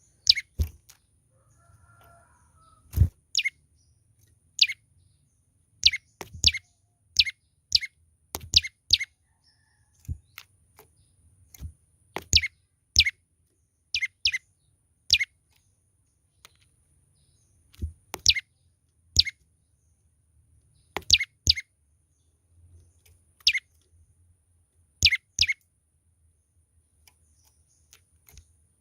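Young prenjak lumut calling vigorously: short, sharp high chirps, often in quick pairs, repeated every second or so with brief pauses.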